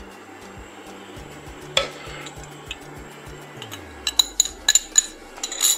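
A pot lid knocking and clinking against a cooking pot: one knock about two seconds in, then a quick run of sharp, ringing clinks in the last two seconds. Soft background music plays underneath.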